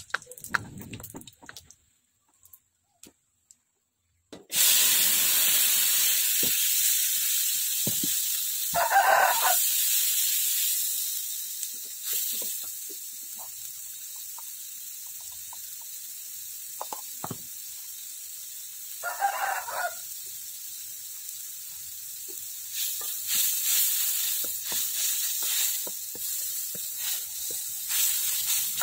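Food sizzling in hot oil in a steel wok. The sizzle starts suddenly a few seconds in, loud at first, then settles to a steady hiss with crackling again near the end. A rooster crows twice in the background.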